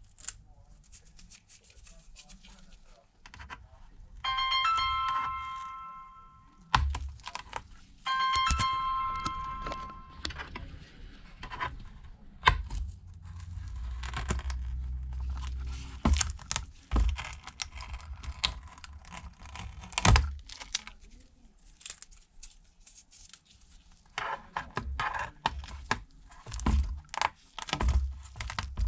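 Tearing, scraping and clicking of repair tools prying a glued-down battery out of an iPad Pro, with the adhesive peeling. Two ringing tones of about two seconds each sound about four and eight seconds in.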